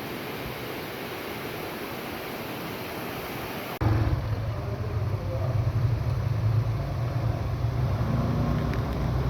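A steady rushing hiss of a waterfall, which cuts off abruptly about four seconds in and gives way to a louder, steady low rumble.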